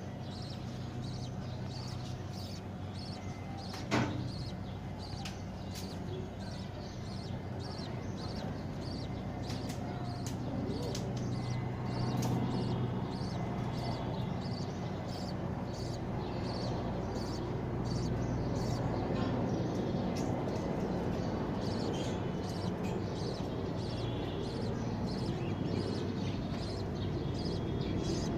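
Budgerigars giving short, high chirps over and over above a steady background hum and noise. There is one sharp knock about four seconds in.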